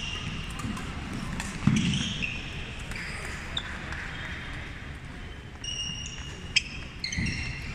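Badminton play on a hardwood court: sneakers squeaking on the floor and a few sharp racket hits on the shuttlecock, ringing in a large gym hall.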